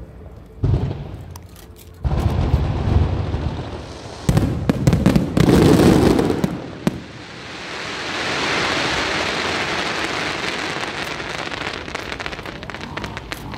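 Aerial fireworks: several shell bursts with low booms and sharp cracks in the first seven seconds, then a long, dense, rain-like crackle.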